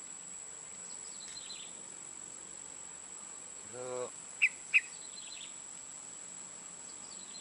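Steady high-pitched insect drone with faint bird chirps. About four seconds in comes a brief low hum, then two sharp clicks about a third of a second apart, the loudest sounds here.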